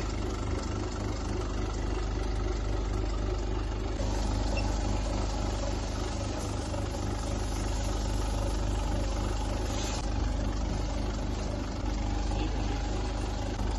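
Steady low mechanical hum of a machine or engine running evenly.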